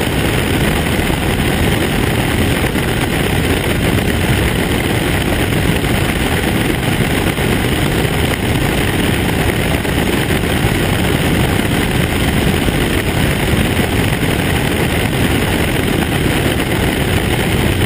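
Steady in-flight roar of a CubCrafters Carbon Cub SS at cruise: its four-cylinder piston engine and propeller running evenly under rushing airflow.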